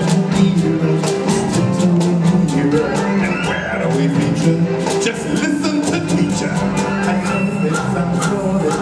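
Stage-show music: instruments holding long notes over a steady percussion beat.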